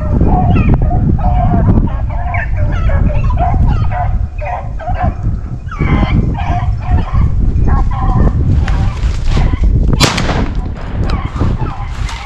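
Rabbit hounds baying in repeated calls while running a rabbit, over a steady low rumble. A single gunshot cracks about ten seconds in, a shot the hunter thinks missed the rabbit.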